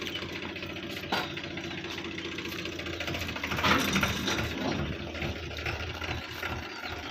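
An engine running steadily, with a short louder sound about three and a half seconds in.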